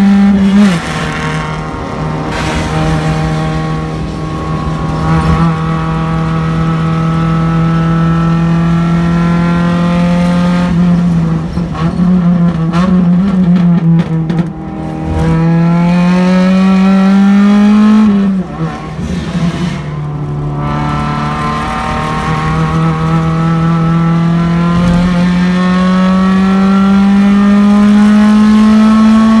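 Race car engine heard from inside the car under hard acceleration. Its pitch climbs steadily and drops sharply at upshifts about a second in and again about eighteen seconds in. In the middle the pitch wavers and falls as the car slows for a turn, then climbs again.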